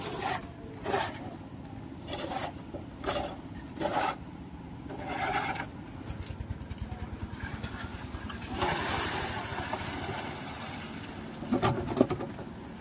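Changfa 180 seven-horsepower water-cooled single-cylinder diesel engine running steadily and driving a mini concrete lift and mixer. Irregular knocks and clanks sound over it, with a louder rushing noise of about a second and a half roughly nine seconds in.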